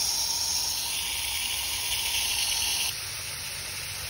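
Water spraying from a garden hose spray nozzle, a steady hiss. About three seconds in it drops suddenly to a quieter, steady spray.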